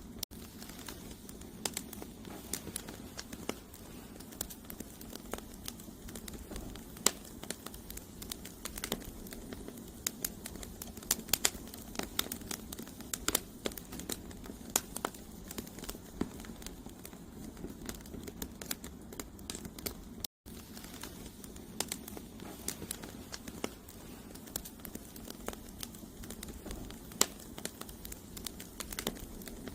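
Campfire of burning firewood logs crackling and popping, with sharp irregular snaps over a steady low rush of the flames. The sound cuts out completely for a split second about twenty seconds in.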